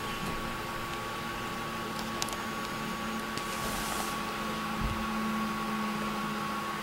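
Steady electrical hum and hiss with several fixed tones, broken by a few faint clicks about two seconds in and a soft low thump near the end.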